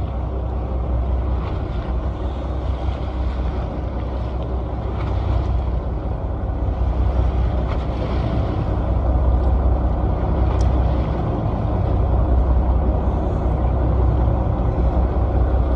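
A fishing boat's engine runs steadily with a low rumble under the wash of choppy sea.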